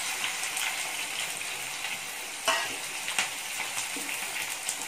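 Freshly sliced onions sizzling steadily in hot oil in a kadai, just added to the pan. A spatula stirs them and clicks against the pan a few times from about halfway through.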